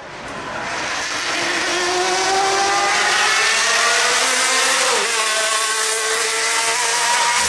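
1965 Honda RA272's 1.5-litre, 48-valve V12 at high revs as the car approaches. It grows louder over the first two seconds, then its high-pitched note climbs steadily, with a brief dip in pitch about five seconds in.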